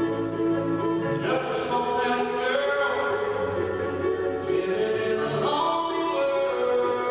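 Live bluegrass band with mandolin and acoustic guitar playing, and a man's lead vocal coming in about a second in, sung in two phrases.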